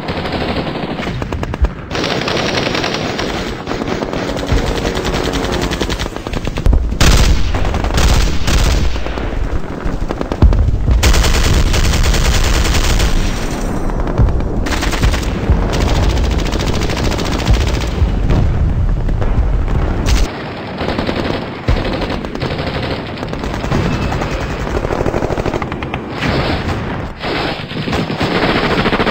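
Battle gunfire sound effects: machine-gun bursts and rifle shots, dense and overlapping, with abrupt changes in the mix every few seconds.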